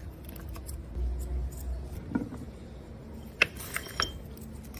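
Walnut shell being broken apart and picked over by hand: soft crackling and handling noise, with a few sharp clicks about two seconds in and again between three and four seconds.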